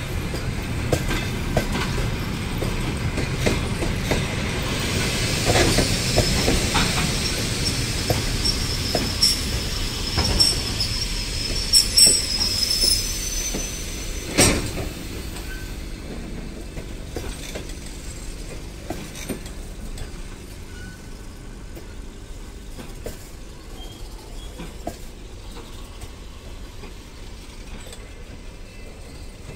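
Russian long-distance passenger coaches rolling past while braking into a station: wheels rumble and click over the rail joints, with a high squeal from the wheels a little before halfway. A sharp knock follows, then the rumble dies down as the train slows.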